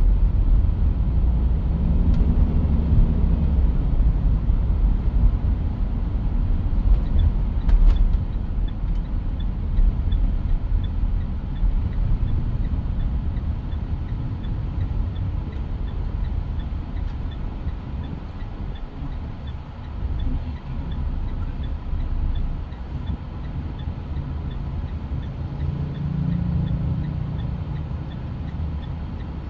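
Mitsubishi Pajero Sport heard from inside the cabin while driving: steady engine and road rumble that swells briefly near the start and again near the end. A faint, regular ticking runs at about two ticks a second through most of it.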